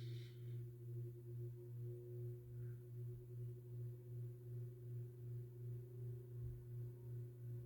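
SMC-UB42 ceiling fan motor running on high speed in reverse: a steady hum that swells and fades about three times a second, with a fainter higher tone above it.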